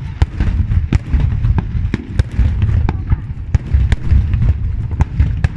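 Aerial fireworks display: a rapid, irregular series of sharp bangs and crackles over a continuous low rumble of booms.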